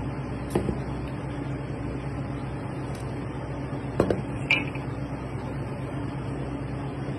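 A large kitchen knife knocking on a plastic cutting board as it chops through pressed octopus: one knock about half a second in, then two about four seconds in, the second with a short metallic ring. A steady low hum sits under it all.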